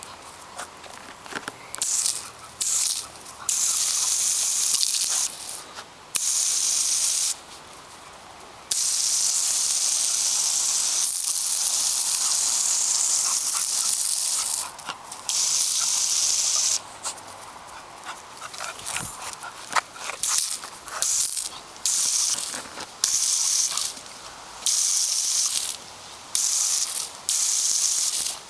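A hissing spray that starts and stops abruptly many times, each run lasting from about a second to about six seconds.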